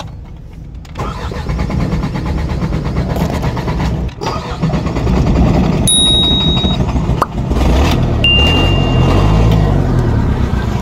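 Diesel engine cranking on the starter from about a second in, then catching and running steadily from about five seconds in, now that its faulty fuel shut-off valve has been replaced. A short high tone sounds twice while it runs.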